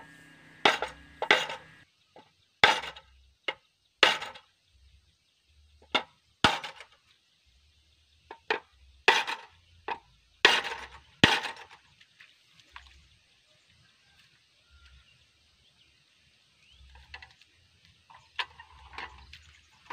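Irregular metal-on-metal hammer blows, about a dozen with short ringing tails, on the bent steel handlebar of a Quick E85 hand tractor as it is beaten straight after the tractor rolled over. The blows stop about twelve seconds in, and a couple of faint knocks follow near the end.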